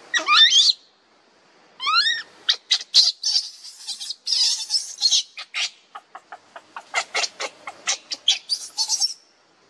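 Baby macaque crying in distress: two wavering high-pitched squeals near the start, then a fast run of short shrill cries and shrieks until shortly before the end.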